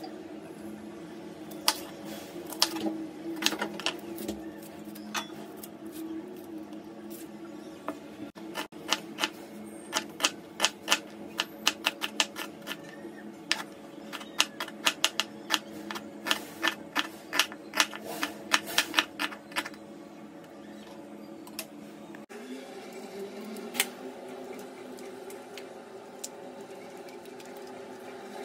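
Kitchen knife slicing an onion on a wooden chopping board: sharp knocks of the blade striking the board, many in quick runs, stopping about 20 seconds in. A steady low hum runs underneath.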